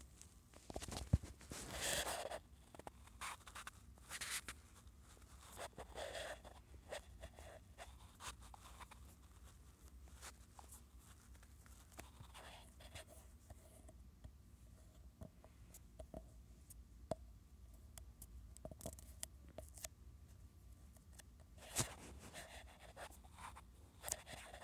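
Faint, scattered scratchy rubbing and a few short taps of a finger working a phone's touchscreen in a drawing app, over a low steady hum.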